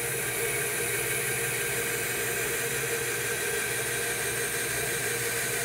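Rikon bandsaw running steadily, its blade cutting slowly through a thick walnut block: a constant motor hum with a high hiss from the blade.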